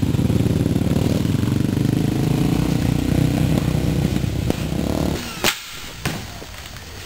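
A motor vehicle engine idling with a rapid low pulse, cutting off abruptly about five seconds in, followed by a few sharp clicks.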